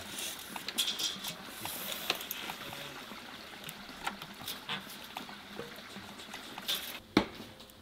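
Small scrapes, taps and clicks of hands working on a wooden plank as it is measured and marked, with one sharp knock near the end.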